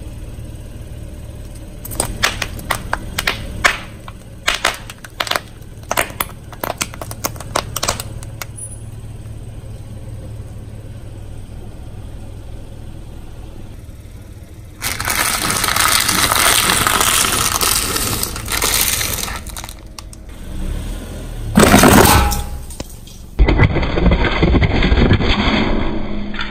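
Car tyre rolling slowly over objects and crushing them: a quick series of sharp cracks and crunches over a low engine rumble, then longer, louder stretches of continuous crushing noise with one loud crunch near the end.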